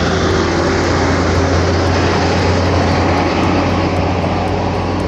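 Bus engine running, a loud steady low hum under a broad rushing noise that eases off slightly near the end.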